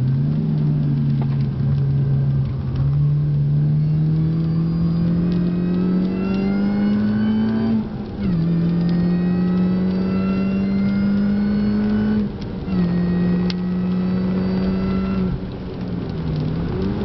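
Supercharged Mini Cooper S R53's 1.6-litre four-cylinder engine accelerating hard, heard from inside the cabin. The engine note climbs steadily and drops suddenly at gear changes about eight and twelve seconds in, then drops and quietens about fifteen seconds in.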